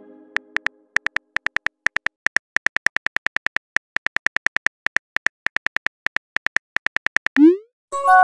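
Smartphone keyboard key clicks as a text message is typed, a quick irregular run of taps. Near the end comes a short rising swoosh as the message is sent.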